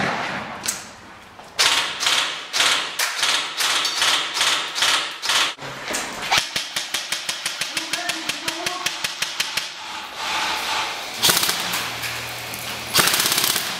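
Airsoft rifles firing: a run of sharp cracks, spaced shots at first, then a quicker string of shots from about halfway, with denser bursts near the end.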